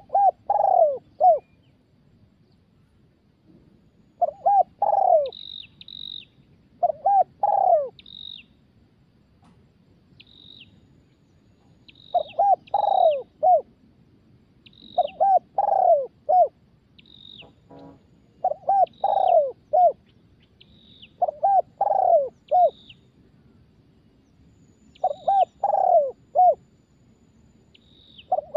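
Spotted dove cooing: a newly caught wild bird gives a short phrase of two or three low coos every few seconds, about eight phrases in all. Thin, high chirps from a small bird come in between the phrases.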